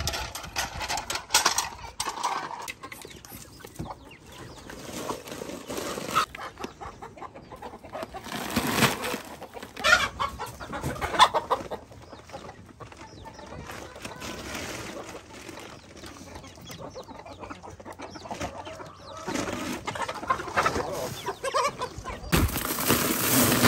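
A flock of chickens clucking and calling in irregular bursts. Near the end a steady rush of wind noise on the microphone comes in.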